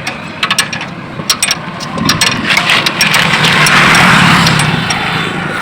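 A vehicle engine running, with a scatter of sharp clicks and knocks over the first two seconds; a broad rushing engine sound then swells from about two seconds in and eases off near the end.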